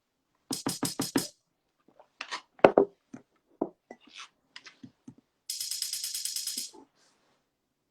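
Broken-up snippets of an electronic drum-machine beat: a quick run of five hits about half a second in, scattered single hits, then a buzzing rattle lasting about a second near the end.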